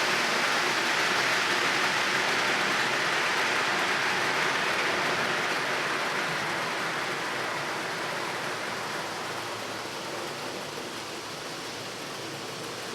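Steady rushing noise, like hiss or falling water, strongest in the upper-middle range, fading gradually over the second half.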